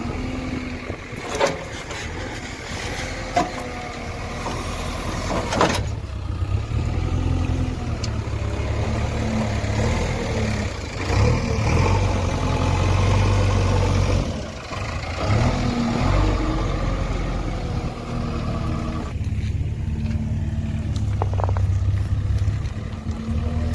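Diesel engine of a JCB 3DX backhoe loader running under way, its pitch rising and falling several times, with a couple of sharp knocks in the first few seconds.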